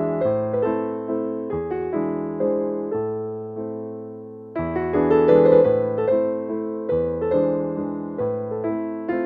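Background piano music: gentle keyboard chords struck and left to fade, thinning out in the middle and coming back fuller and louder about halfway through.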